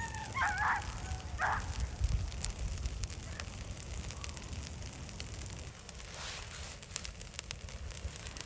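Brush pile of green conifer boughs burning, crackling with many sharp pops over a low rumble. Two short, wavering high-pitched calls sound in the first second and a half.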